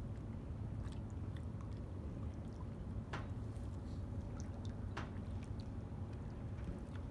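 Small waves lapping and sloshing against the harbor seawall and pilings, with scattered wet clicks and two sharper slaps, about three and five seconds in, over a steady low rumble.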